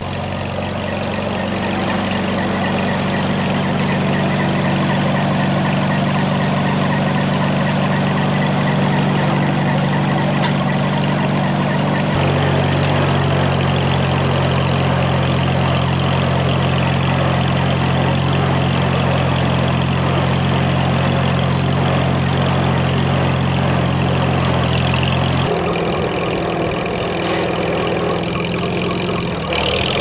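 Farmall H tractor's four-cylinder gasoline engine running steadily, heard up close from the seat. Its note shifts about 12 seconds in and again about 25 seconds in.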